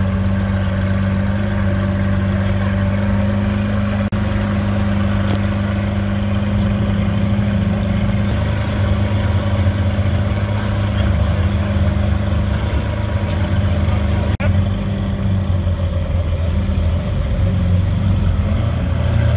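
Lamborghini Aventador's V12 engine idling steadily with a deep, even drone, without clear revving.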